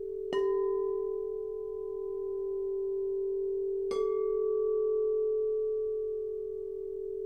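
Pressed quartz crystal singing bowls, said to be tuned to 432 Hz, ringing with a steady pure tone and a few fainter higher overtones. A bowl is struck twice, about a third of a second in and again about four seconds in, each strike a bright tap that freshens the ringing.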